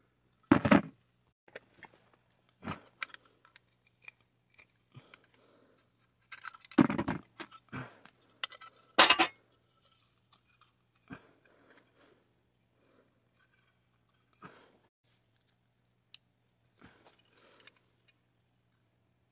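Metal parts of a butane camp stove being handled and worked apart by hand: scattered clinks, scrapes and clatter, with louder knocks about half a second in, around seven seconds and around nine seconds.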